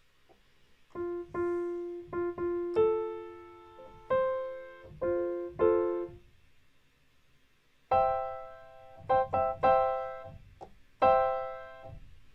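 Software piano played from a MIDI keyboard: a run of single notes, then from about eight seconds in a few chords struck, each note ringing and fading away.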